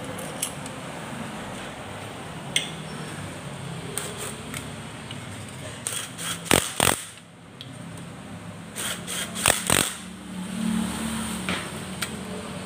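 Metal hand tools clicking and clinking on a motorcycle's cylinder head during top-end reassembly. The sharp clicks come in scattered groups, loudest a little past halfway and again about three quarters through, over a steady low hum.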